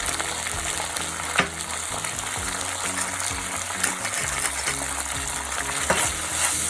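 Onions, carrots and oyster sauce sizzling as they fry in a pan, with a spatula clicking against the pan three times as it is stirred.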